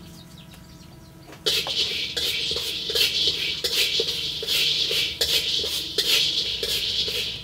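Peanuts being stirred in a dry black wok with a spatula: the spatula scrapes across the pan and the nuts rattle and slide, in repeated strokes about two or three a second. It starts about a second and a half in, after a brief quiet.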